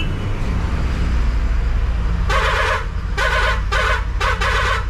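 Bharat Benz truck's engine running steadily, heard from inside the cab. About two seconds in, a vehicle horn sounds four short blasts, the third the shortest.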